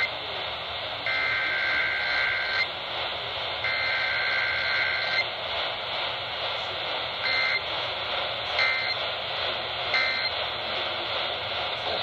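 EAS SAME data bursts heard through a radio's speaker: two long warbling two-tone header bursts, about a second and a half each and a second apart, then three short end-of-message bursts a little over a second apart, all over steady AM static hiss.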